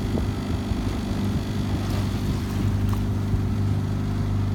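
Outboard motor of a coaching launch running steadily, a constant low drone.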